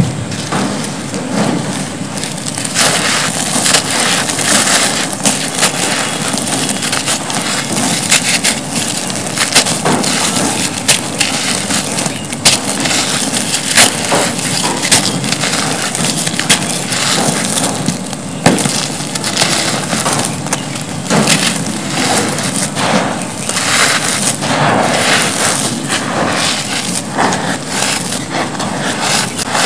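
Soft, dry cement clumps crushed and crumbled in bare hands over a heap of dusty cement powder: a continuous gritty crunching, dotted all through with sharp little crackles as pieces snap apart.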